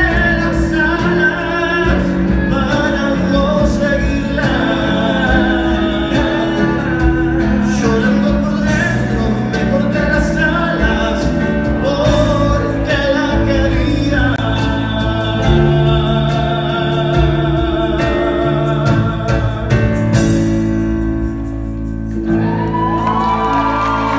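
Live band playing a song: a man singing over electric keyboard and electric bass guitar.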